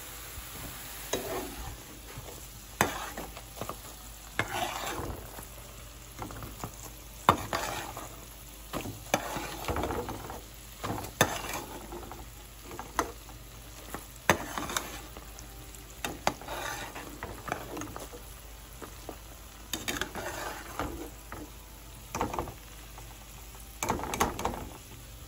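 Jilapi (jalebi) deep-frying in hot oil, a steady sizzle. Over it come repeated sharp clicks and scrapes of a slotted metal spoon against the metal pan as the jilapi are turned and lifted out.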